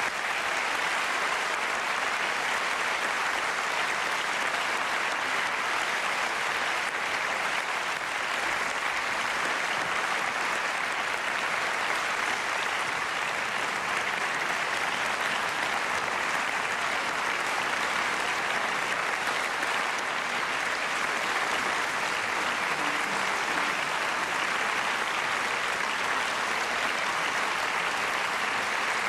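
Audience applauding: dense, steady clapping that neither builds nor dies away.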